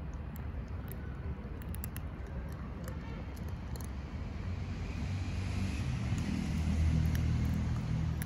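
Low traffic rumble: a motor vehicle's engine swells louder from about five seconds in. Faint scattered clicks of cats crunching dry kibble sound over it.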